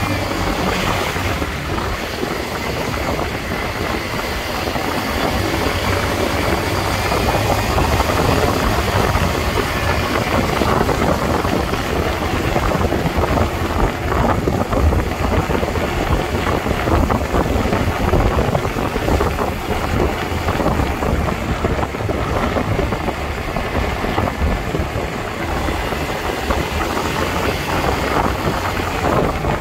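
Wind rushing over the microphone of a moving two-wheeler, mixed with steady road and traffic noise.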